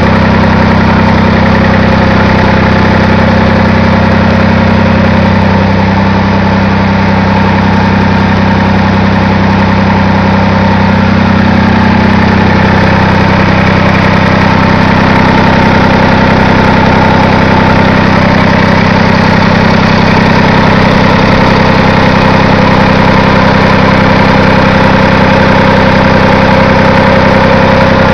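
Leyland 245 tractor's three-cylinder diesel engine idling steadily, heard up close at the engine, running after an engine repair.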